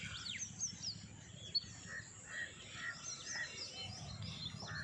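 Several birds chirping and calling, with many short repeated notes and quick falling whistles, over a faint low rumble of outdoor background noise.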